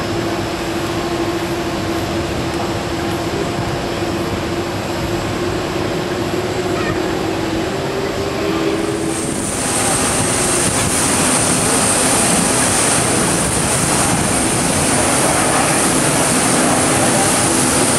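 Twin-engine jet airliners at taxi power on a wet airfield. First there is a steady engine drone with a held mid-pitched tone. About halfway through it changes to a louder jet rush with a high whine.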